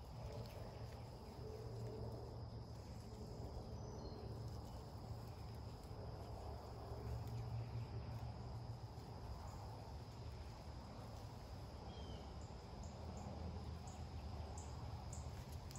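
Faint, steady high-pitched insect drone over a low rumble, with a few faint bird chirps.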